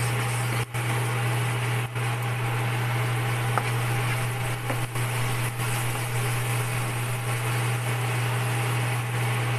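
A steady low hum over an even hiss of chorizo frying in oil in a nonstick pan, with a few faint ticks as a spatula stirs it.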